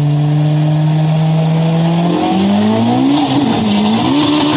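Sports-car engine sound effect: a steady drone, then from about two seconds in revving up and down in several swells of pitch, with a hiss building over it in the second half.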